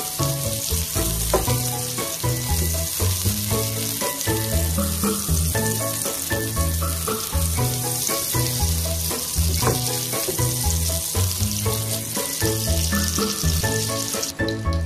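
Butter sizzling and foaming as it melts in a hot pan, under background music with a steady bass line; the sizzle cuts off just before the end.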